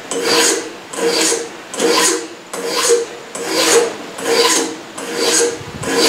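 Hand file rasping across a knife blade's tang clamped in a vise, in about eight even strokes a little over one a second. Each stroke carries a ringing note.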